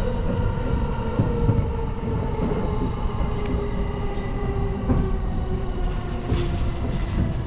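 Electric commuter train heard from inside the carriage as it slows into a station: low rumble of the wheels on the rails, with the motor whine falling slowly in pitch as it brakes. A few clicks, and a brief high hiss or squeal near the end.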